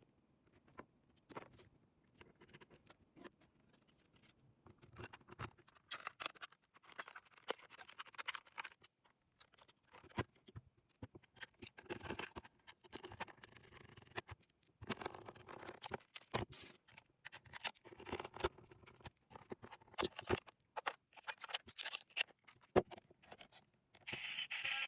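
Irregular clicks, taps and scrapes of a Sony ICF-SW40 portable radio's plastic case and parts being handled and worked on. A steady hiss comes in near the end.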